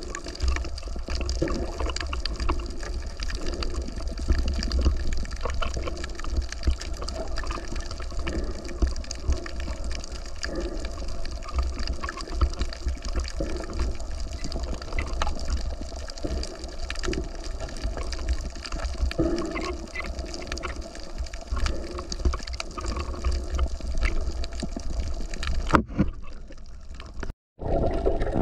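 Sea water sloshing and gushing, with a steady low rumble and many small clicks. The sound drops away abruptly near the end, cuts out for a moment, then returns.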